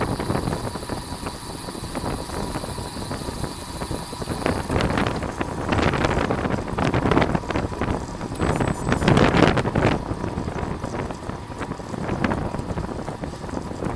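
Wind buffeting the microphone of a camera riding along on a road bicycle at race speed, a loud rushing noise that swells in gusts. A faint high whine sits under it and stops about a third of the way through.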